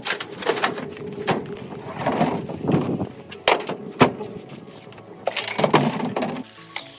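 A car hood and a kayak being handled and loaded onto a pickup truck: irregular knocks, scrapes and rattles of sheet metal and plastic, with two sharp bangs about three and a half and four seconds in.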